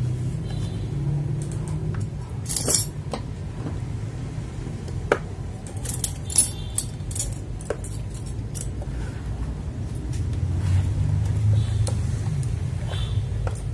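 Small scattered clicks and clinks from the plastic parts of an Akko mechanical keyboard switch being opened and handled for lubing, with its spring and tools. A steady low hum runs underneath.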